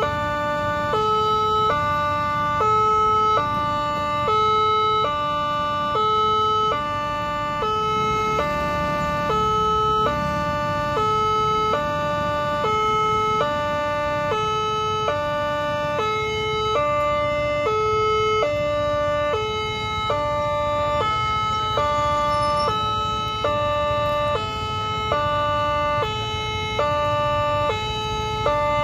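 Railway level-crossing warning alarm sounding, an electronic two-tone chime that switches between a higher and a lower pitch about once a second without a break: the signal that a train is approaching and the crossing is closing.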